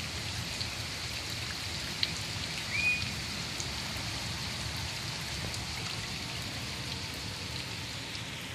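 Steady hiss like rain or a night insect chorus, with one short whistled call about three seconds in that rises and then levels off: the unidentified backyard animal's call.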